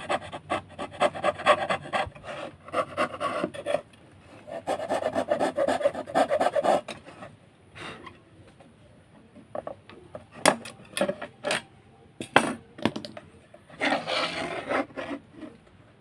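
Hand fretsaw cutting wood: rapid rasping strokes in two long runs, then a few sharp knocks, and a short run of strokes near the end.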